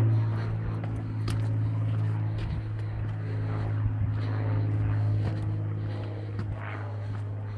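A steady low mechanical hum, like a distant motor, with footsteps on a gravel trail over it.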